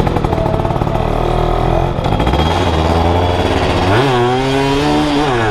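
Yamaha F1ZR's two-stroke single-cylinder engine running under way through a stainless CLD C1 aftermarket exhaust, with a raspy note. It revs up sharply about four seconds in, then drops back briefly right at the end.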